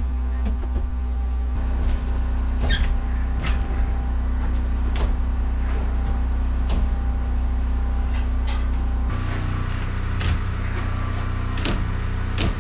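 The engine of a Wood-Mizer LT15 bandsaw mill running steadily, with a series of sharp knocks and clunks as an ash log is rolled over on the mill bed with a cant hook. The engine note changes about nine seconds in.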